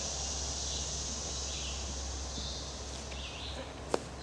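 Summer woodland background: a steady high drone of insects with faint, recurring chirps over it, and one sharp click near the end.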